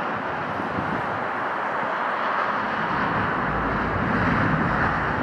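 Boeing 777-200ER's twin jet engines heard across the airfield as the airliner rolls out on the runway after landing. The steady engine noise is joined by a deeper rumble that builds about three seconds in.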